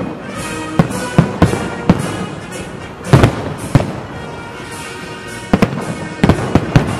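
Fireworks salute: aerial shells bursting in an irregular series of sharp bangs, clustered near the start, about three seconds in, and again in the last two seconds, over music.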